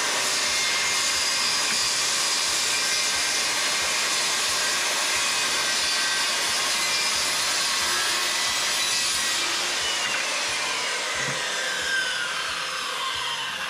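Makita 5007F 7¼-inch, 15-amp corded circular saw running at full speed and cutting through 3/8-inch plywood. About ten seconds in the trigger is released and the motor winds down with a falling whine, and the saw is set down on the table with a light knock near the end.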